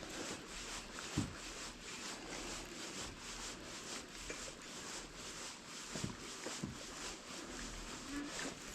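Fishing reel being cranked through a crankbait retrieve: faint steady ticking with a few soft knocks.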